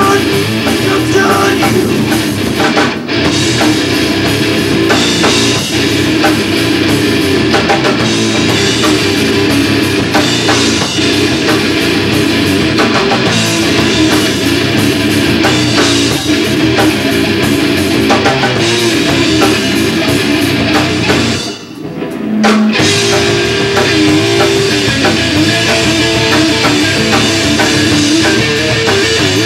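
Heavy rock band playing live: electric guitar and drum kit at full volume. About two-thirds of the way in the band stops dead for about a second, then crashes back in.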